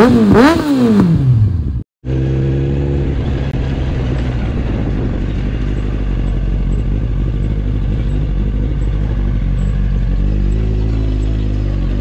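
Two quick motorcycle engine revs, each rising and falling sharply in pitch, cut off suddenly about two seconds in. Then a Kawasaki Ninja ZX-9R's inline-four engine runs steadily at low revs as the bike rolls slowly, the revs rising a little near the end.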